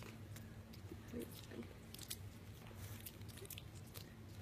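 A dog licking and biting at dental floss in its mouth: a scattering of faint mouth clicks and smacks.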